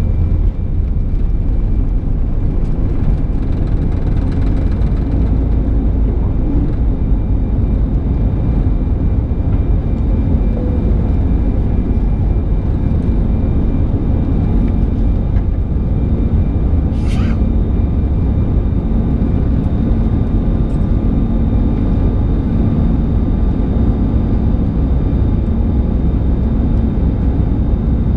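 Airbus A320's jet engines at takeoff thrust, heard from inside the cabin: a steady deep rumble with faint steady whines above it, through the end of the takeoff roll, liftoff and initial climb. One short sharp click about two-thirds of the way through.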